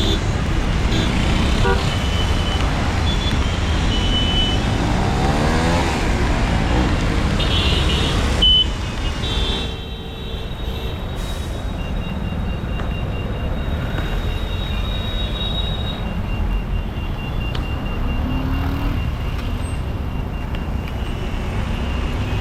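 Road traffic heard from a moving bicycle: a steady low rumble of wind and passing vehicles, one engine rising in pitch about five to seven seconds in, and brief horn toots in the first half.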